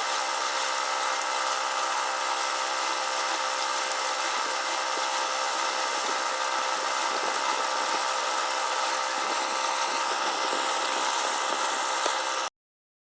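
A steady mechanical hum, even in level and pitch, that cuts off abruptly near the end.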